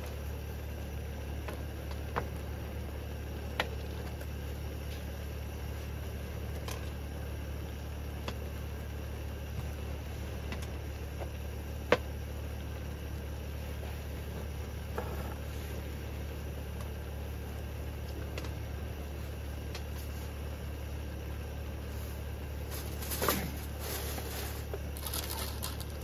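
A steady low hum with a few sharp clicks of utensils on dishes, and a short clatter near the end.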